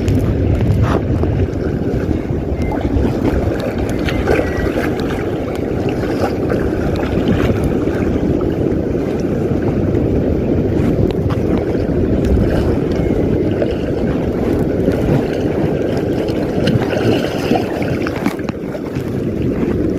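Steady wind buffeting the microphone over the wash of sea water around inflatable inner-tube fishing floats.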